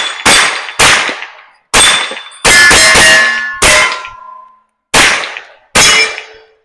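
Smith & Wesson M&P FPC 9mm carbine firing about eight semi-automatic shots at an uneven pace. Several shots are followed by the ringing of struck steel targets.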